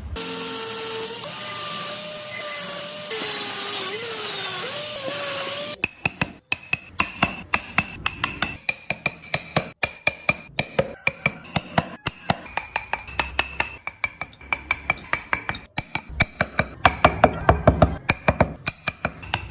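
Woodworking tools on wood: a machine's whine that shifts in pitch over a steady hiss for the first few seconds, then a long run of rapid sharp taps.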